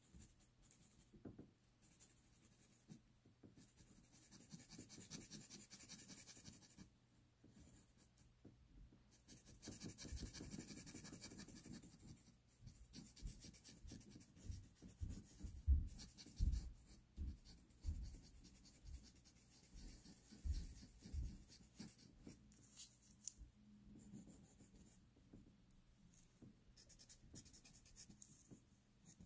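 Pastel pencil scratching and rubbing on textured pastel paper in short stretches of strokes. A few soft low thumps come in the middle, the loudest of the sounds.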